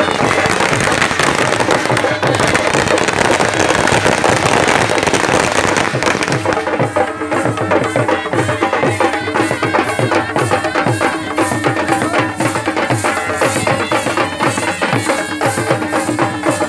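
Folk procession music played on barrel drums beaten with sticks, with other sound layered over the drumming. About six seconds in it becomes a sharper, clearly even drum beat.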